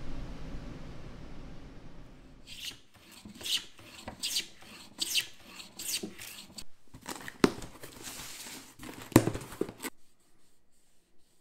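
Stanley 78 rabbet plane taking a series of short cutting strokes on wood, about one stroke every second. A rag then rubs over the plane's cast-iron body, with two sharp knocks.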